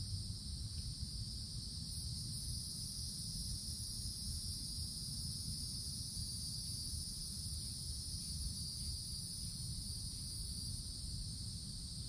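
Chorus of cicadas: a steady, unbroken high-pitched drone, with a low rumble underneath.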